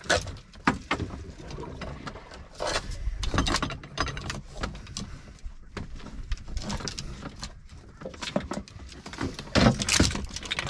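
Fishing rod and tackle handled right at the microphone: irregular clicks, knocks and rattles over a steady low background noise. The loudest knocks come about ten seconds in, as the rod is gripped right against the camera.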